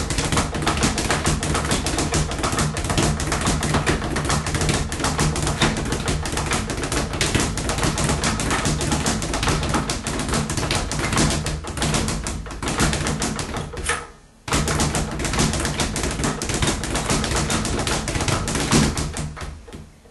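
Speed bag being punched in a fast, continuous rattle of double-punch combinations, the leather bag rebounding off its platform many times a second. The rattle cuts out for about half a second roughly three-quarters of the way through, then resumes and dies away near the end.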